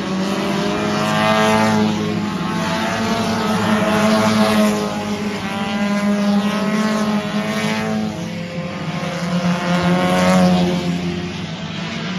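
A field of V6 stock cars racing around an oval track, engines running hard. The sound swells and fades several times, with the pitch bending up and down as cars come past and go away.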